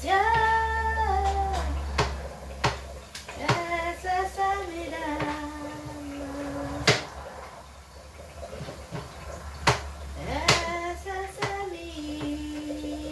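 A woman sings slow, long-held notes without clear words, stepping between pitches, three phrases in all. Now and then a sharp knock, like a knife striking a chopping board, cuts in between and over the notes.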